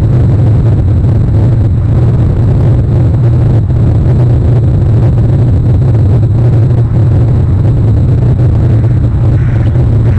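Steady, loud low rumble of wind buffeting an outdoor webcam's microphone in stormy weather.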